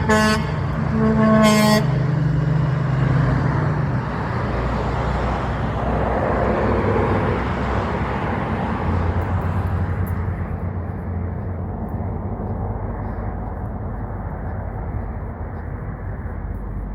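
A truck horn sounds two short blasts, the second about a second after the first. The truck's engine and tyres then run on past and slowly fade away.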